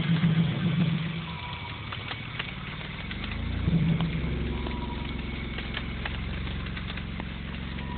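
Cicada killer wasp buzzing in flight, a low hum whose pitch rises and dips as it moves about. It is loudest in the first second and again about four seconds in.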